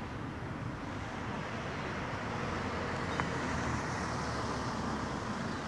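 Road traffic noise from cars passing on the street alongside, swelling to its loudest about four seconds in, with one short click a little after three seconds.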